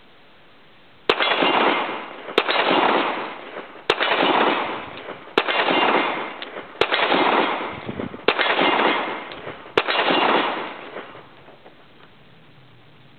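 Seven shots from a full-size Colt Government model 1911 .45 ACP pistol, fired at a steady pace about a second and a half apart, each followed by a long echo.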